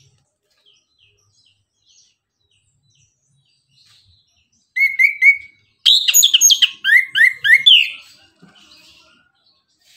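Chestnut-capped thrush (anis kembang) singing. After a nearly quiet start, it gives three short down-slurred whistles about halfway through, then a loud, rapid run of descending whistled notes lasting about two seconds.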